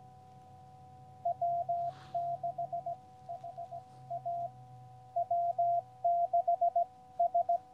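Morse code (CW) received on a QCX Mini transceiver and played through a small speaker: a single steady beep keyed in short and long elements, spelling the call sign W6HA twice, starting about a second in.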